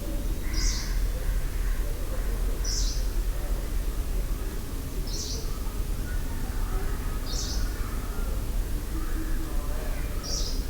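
Village outdoor ambience: a bird repeating a short, high call about every two seconds, with fainter bird chatter over a steady low rumble.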